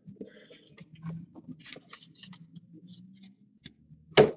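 Trading cards being handled and flipped through, with soft slides and small clicks over a faint low hum, and one sharper tap near the end.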